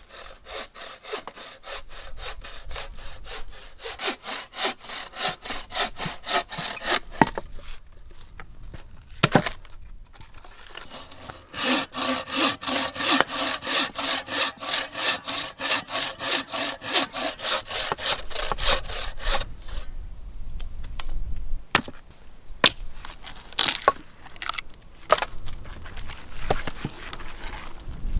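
Bow saw cutting through a wooden branch in rapid, even back-and-forth strokes, in two spells with a pause of a few seconds between. Near the end come a few scattered sharp knocks of wood being handled.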